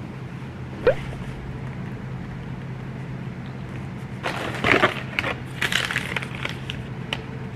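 Electric kettle heating water with a steady low hum, with a single knock about a second in. In the middle and near the end comes crackly rustling as a tea box and a wrapped tea sachet are handled.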